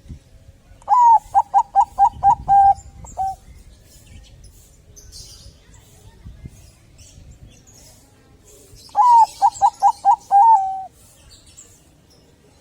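Zebra dove (Bangkok-bred perkutut) singing: two song phrases about eight seconds apart, each a quick run of short cooing notes ending in a longer drawn note.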